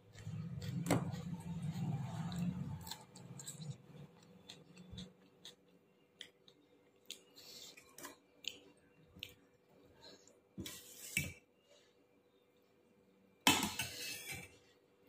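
A meal being eaten from a plate: scattered light clinks and scrapes of the plate and tableware, with a low muffled noise through the first three seconds and a louder scraping burst near the end.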